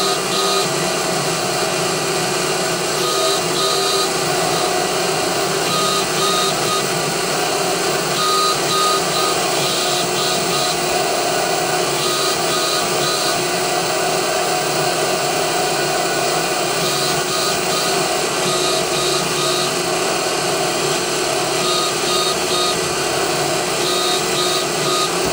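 Mill-drill motor and spindle running steadily while a spinning abrasive tool is pressed onto a metal plate over and over, engine-turning overlapping spots. A brief scratchy burst comes with each touch, every two to three seconds.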